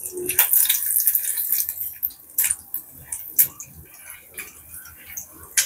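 Tempering spices frying in hot sesame oil: a steady sizzle and crackle, with sharp scattered pops of mustard seeds starting to splutter as the mix is stirred.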